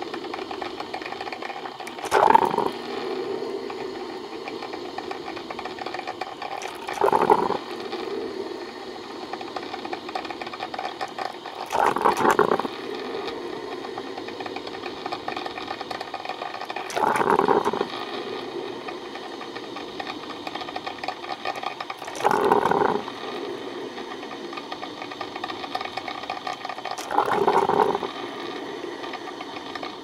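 Coffee maker running with a steady rattling hum, broken by a louder surge about every five seconds, six in all.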